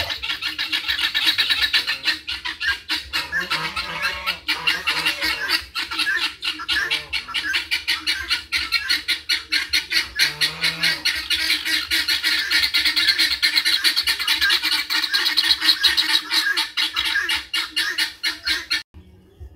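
A crowd of farmyard fowl and ducks calling in a loud, dense, rapid chatter that cuts off suddenly near the end.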